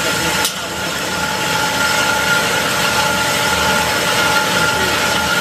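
Automatic metal-cutting bandsaw machine running with a steady, even whine and hum. A single sharp click comes about half a second in.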